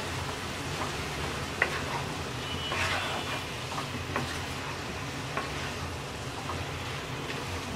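Wooden spatula stirring shredded cabbage, peas and tomato in a kadai over high heat, with a steady frying sizzle and a few soft clicks of the spatula against the pan.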